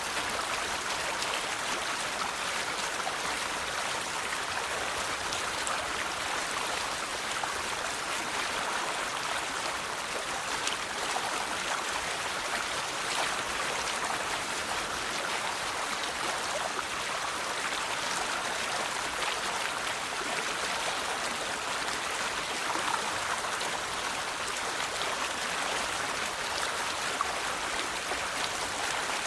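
River water flowing over stones: a steady rushing and babbling with small splashes scattered through it.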